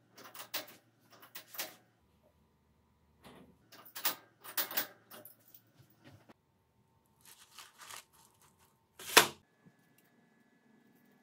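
Irregular metal clicks and clatter from tooling being handled on a metal lathe's tool post, in short groups, ending with one sharp knock about nine seconds in.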